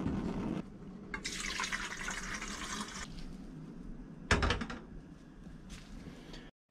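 Water running for about two seconds, typical of a stainless steel kettle being filled at a sink. About four seconds in comes a single clunk as the kettle is set down on the gas burner's grate.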